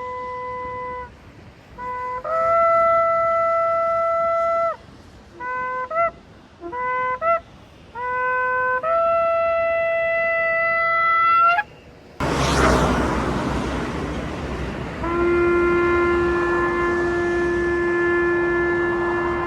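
Ram's-horn shofar blasts: a held note, a long note that jumps up in pitch just after it starts, three short broken notes, and another long note that rises slightly at its end. About twelve seconds in, a sudden loud rushing noise fades over a few seconds, then a long steady blast at a lower pitch.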